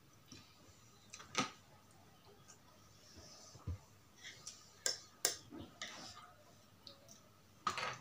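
Scattered sharp clicks of chopsticks and a fork against a plate and a bowl, about four sharp ones in all, with soft eating and breathing noises between them.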